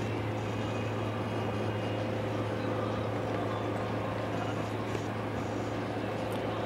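Boat engine running steadily: a constant low hum with an even wash of noise over it.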